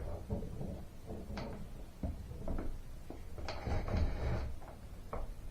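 A storm door's bottom plate being worked by hand. Scattered knocks and clicks lead up to a louder scrape of about a second, starting about three and a half seconds in.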